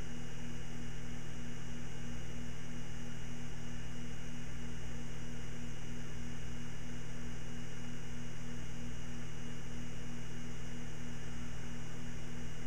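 Bravo II CD/DVD auto-publisher running mid-burn, its disc burner spinning a disc: a steady hum with a low tone that pulses a few times a second and a faint hiss.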